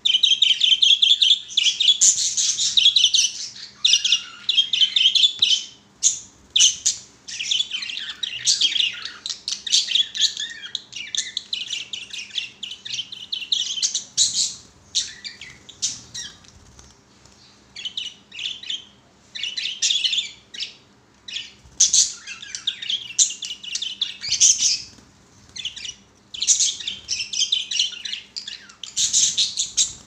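A flock of budgerigars chattering and warbling, rapid strings of high chirps and squawks overlapping almost without pause. It is densest and loudest in the first few seconds, with a couple of short lulls midway.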